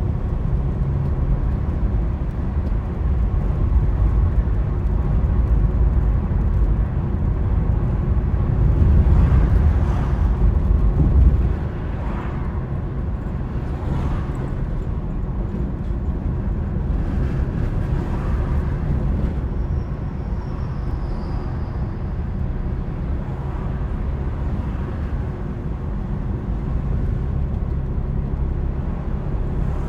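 A car driving, with a steady low rumble of road and engine noise. The rumble swells louder for a few seconds, then drops suddenly about eleven seconds in.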